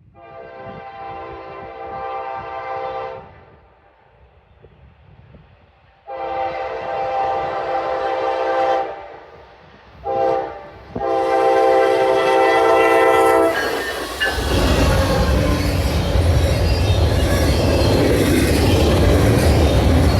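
Norfolk Southern freight locomotive's horn sounding the long, long, short, long grade-crossing signal. About 14 seconds in, the loud rumble of the train passing close by takes over.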